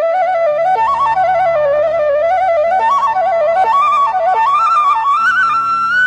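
Bansuri (Indian bamboo flute) playing a slow, ornamented melody over a low sustained drone, climbing to a long held high note near the end.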